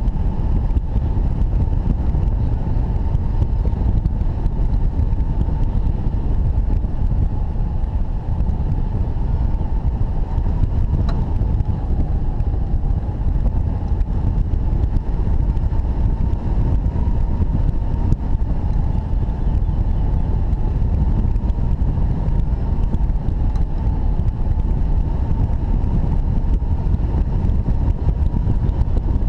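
Wind noise from airflow over a hang glider in flight buffeting the wing-mounted microphone: a loud, steady low rumble, with a faint thin whistle above it.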